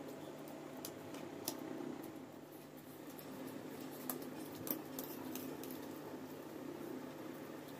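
Two people eating instant noodles with forks: soft chewing and slurping, with a few sharp clicks of forks against the plates, over a steady low hum.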